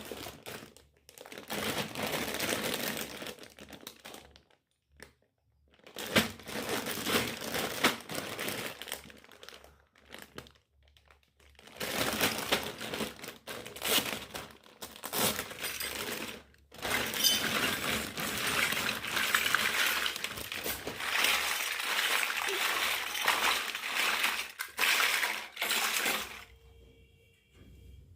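Packaging crinkling and rustling as a toy set is unwrapped, in several long stretches with short pauses between them.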